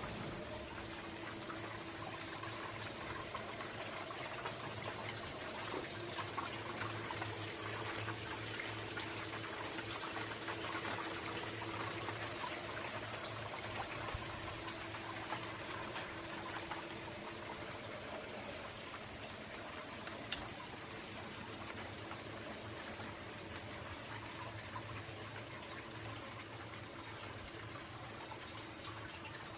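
Water steadily trickling and pouring into an outdoor hot-spring bath, with scattered small drips.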